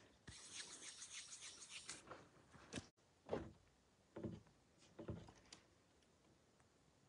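Faint handling noise as hands work dough bait (PowerBait) onto a fishing hook over a wooden table: soft rustling for a couple of seconds, a sharp click, then three soft knocks about a second apart.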